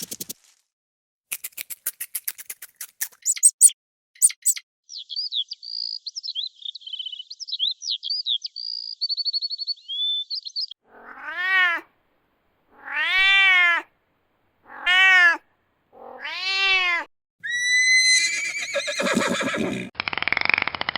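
A cat meowing four times, each meow a drawn-out call that rises and falls in pitch. Before the meows come a rapid run of clicks and then a stretch of high, quick chirping notes.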